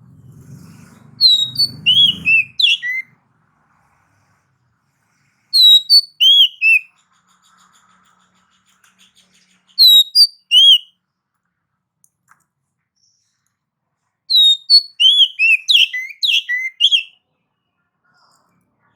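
Oriental magpie-robin (kacer) singing loudly in four short bursts of clear, sweeping whistled notes separated by pauses of a few seconds, the last burst the longest and busiest.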